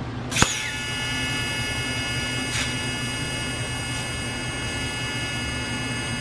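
TIG welding arc on a steel axle truss. It strikes with a sharp crack about a third of a second in, then holds a steady buzzing hiss with thin high tones over the welding machine's low hum, with one more brief crackle midway.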